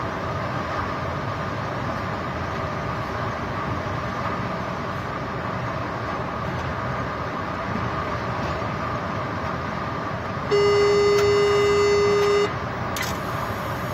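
Steady running noise inside a moving train's driver's cab. Near the end a loud electronic warning tone sounds at one steady pitch for about two seconds, then stops, and a sharp click follows shortly after.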